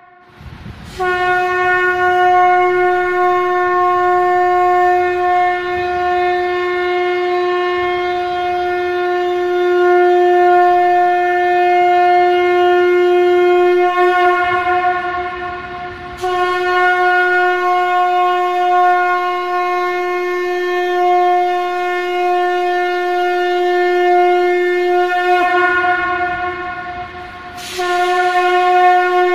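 Conch shell (shankh) blown in long, steady blasts held on one pitch. A first blast of about thirteen seconds starts about a second in, a second of about nine seconds follows a short break, and a third begins near the end.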